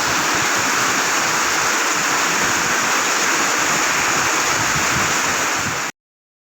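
Heavy rain pouring down, a dense steady hiss, which cuts off suddenly near the end.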